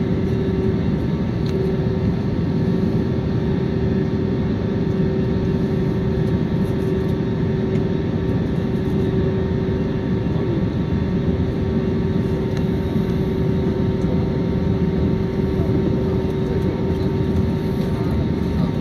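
Steady jet engine and airflow noise of an airliner taxiing, heard inside the cabin: a constant rumble with a steady hum over it.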